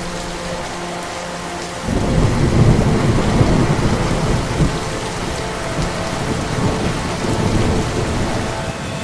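Heavy rain with a low thunder rumble that comes in suddenly about two seconds in and keeps on steadily.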